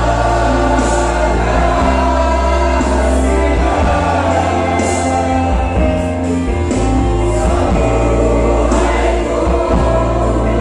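Church choir of women and men singing a gospel hymn together over a steady low bass accompaniment.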